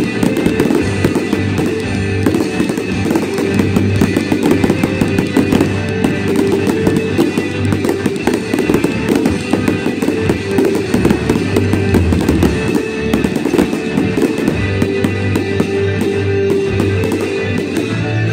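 Fireworks bursting and crackling many times in quick succession over loud music.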